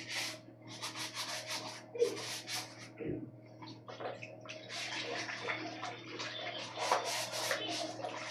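Quick rubbing strokes, several a second, in runs broken by short pauses, with a dull knock about three seconds in.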